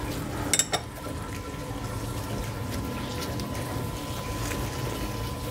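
Steady workshop background noise with a faint steady whine, and a few light clicks about half a second in.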